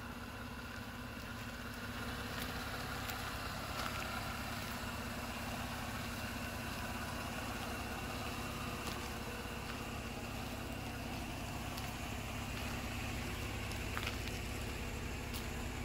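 Jeep Wrangler JL Unlimited's 3.6-litre V6 idling steadily, an even low hum, with a few faint ticks.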